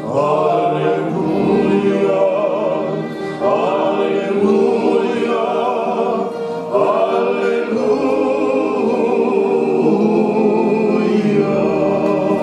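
A group of voices singing a hymn together in long held phrases, each lasting about three to four seconds.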